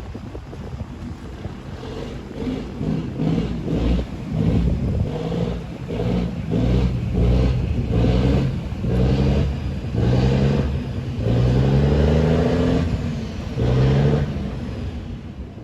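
Tugboat's diesel engine revving up and down in repeated surges over a low rumble, the pitch rising and falling with the throttle.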